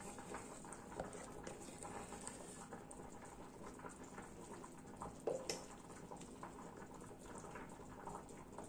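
Silicone spatula scraping thick chocolate muffin batter out of a plastic jug and spreading it into silicone muffin cups: faint, soft wet scrapes and smacks, with one brief louder knock about five seconds in.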